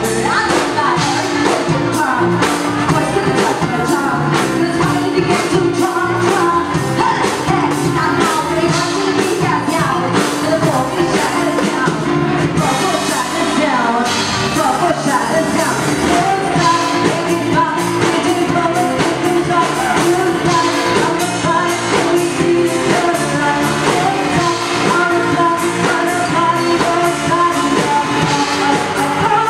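Live band playing a pop song: a woman singing through a microphone over electric bass and drums, loud and steady.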